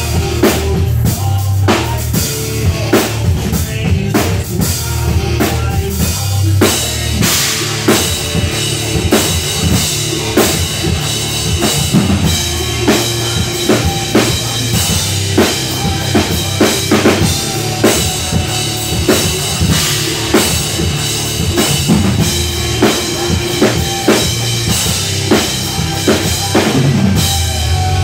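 Pearl acoustic drum kit played live, with kick drum, snare and toms under ringing cymbals. The hits come thick and fast, without a break.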